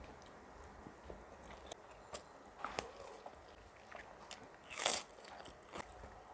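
Close-miked eating sounds: a few scattered crunchy bites and mouth clicks, with the loudest crunch about five seconds in.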